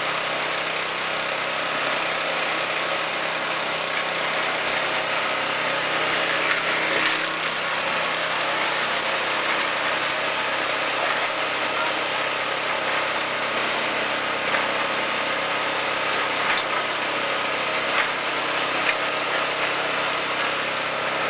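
Portable concrete mixer running steadily, its engine droning as the drum turns, with a few short knocks.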